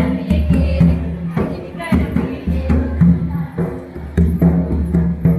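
Karam folk music: drums beaten in a steady run of strikes under voices singing.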